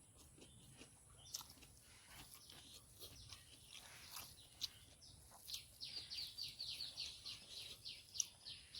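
A bird calling faintly in a rapid run of short, high, falling notes from about halfway through, over scattered faint clicks.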